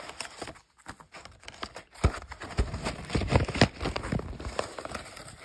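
Hands handling and opening a worn cardboard K-ration box: cardboard and paper crinkling and rustling, with a run of sharper crackles and knocks in the second half.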